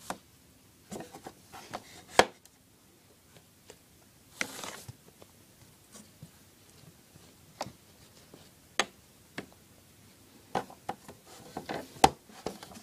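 Handling noise from small plastic toy pet figures being moved by hand over a hard surface: scattered light clicks and taps, with a short rustle about four and a half seconds in and sharper knocks about two and twelve seconds in.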